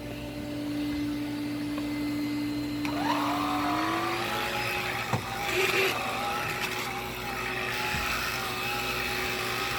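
Vacuum cleaner running steadily as it cleans the floor, its motor hum stepping up slightly in pitch about three to four seconds in, with a few light knocks.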